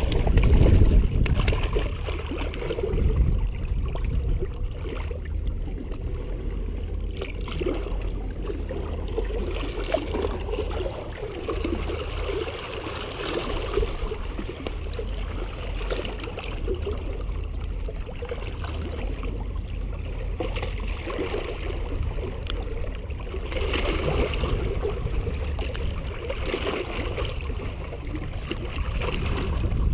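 Small waves lapping and splashing against shoreline rocks, over a steady low rumble, with the water sound swelling and easing every few seconds.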